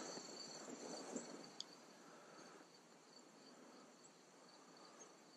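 Near silence with faint, steady high-pitched insect song. A soft rustle in the first couple of seconds fades away.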